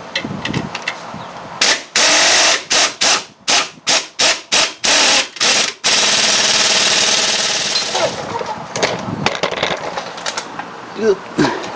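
Air ratchet turning the centre screw of a three-jaw gear puller, run in about ten short bursts with brief pauses, then one longer run of about two seconds that tails off, as the puller draws the front hub bearing assembly out of the steering knuckle.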